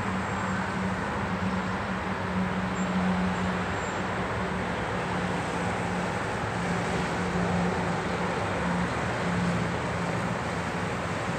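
City street traffic: a steady wash of passing-vehicle noise with a low hum that swells and fades.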